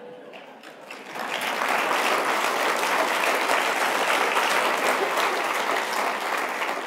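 Audience applauding, swelling about a second in, holding steady, and starting to die down near the end.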